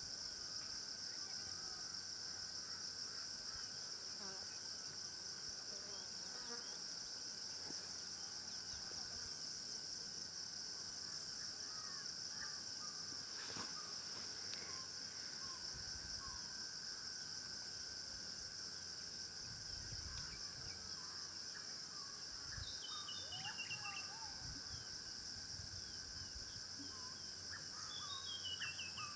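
A steady, high-pitched insect drone of cicadas or crickets, with small birds chirping here and there; twice a bird gives a short run of notes falling in pitch.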